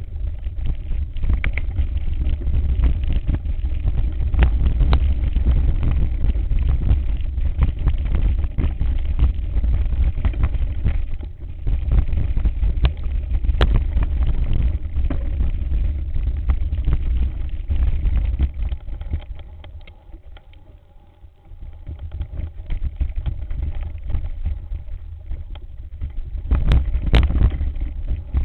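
Mountain bike ridden fast down rocky singletrack, heard through a camera on the bike: a constant low rumble of vibration and wind with frequent rattles and clicks as the tyres hit stones. The rumble eases briefly about two-thirds of the way through, then picks up again.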